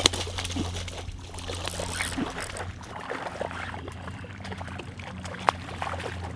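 Water splashing and swishing as a hooked largemouth bass is reeled in through shallow, grassy water, over a steady low hum. There is one sharp click near the end.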